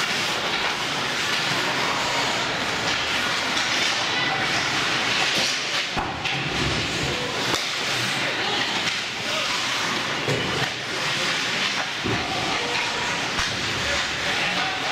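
Ice hockey play: a steady hiss of skate blades scraping and carving the ice, with a couple of sharp knocks about six and twelve seconds in.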